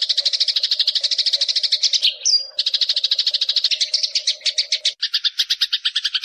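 Eurasian tree sparrows in a fight, chattering in a fast, unbroken train of sharp chirps at about ten a second, with a short break about two seconds in. About five seconds in, a low steady hum underneath stops and the chirps turn harsher, with a lower pitch band added.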